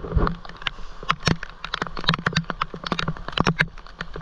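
Rain falling, with single drops striking close to the microphone as many irregular, sharp taps a second.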